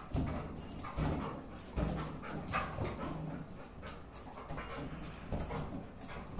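Labrador puppy panting as it jumps at a balloon, with irregular light knocks and thumps throughout as it moves and leaps on the tiled floor.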